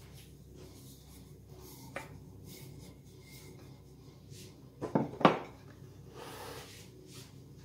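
Pastry being unrolled off a rolling pin over a metal tart tin and pressed down by hand: soft handling sounds, a couple of sharp knocks about five seconds in, then a brief soft rubbing.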